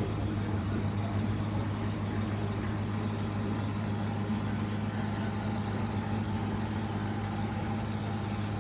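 Abnormal noise from the air-conditioning equipment of JR East commuter car KuHa E230-8017: a steady low hum with a buzzing overtone that does not let up, which the rider takes for a broken air-conditioning unit.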